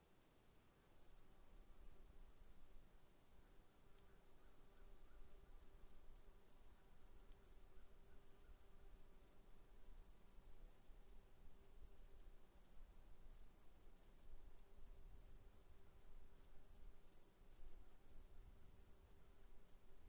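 Crickets chirping faintly and steadily: a continuous high trill with a second chirp pulsing in a rapid, even rhythm.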